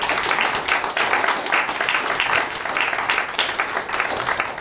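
Audience applauding, many hands clapping at once, dying down near the end.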